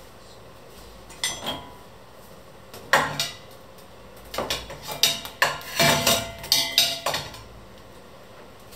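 Metal kitchen utensils clinking and knocking against a stainless steel stockpot and each other: a few separate clinks in the first seconds, then a quick run of knocks and clatters in the second half, one with a brief metallic ring.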